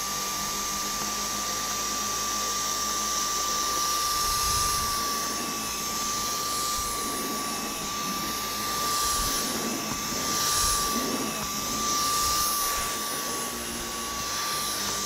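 Dyson V10 Animal cordless stick vacuum running: a steady high motor whine over rushing air, the airflow noise swelling and easing through the middle. Its cleaner head is gripping a rubber-backed rug hard under suction.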